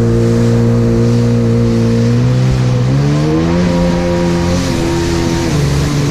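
Jet ski engine running steadily, then revving up about three seconds in and easing back off near the end, over a hiss of water.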